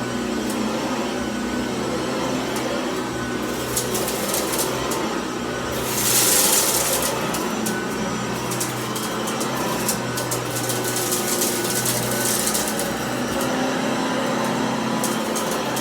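Cordless stick vacuum running on high over carpet, its motor giving a steady hum, with scattered crackling ticks as rice and oatmeal are sucked up. A louder rushing surge comes about six seconds in.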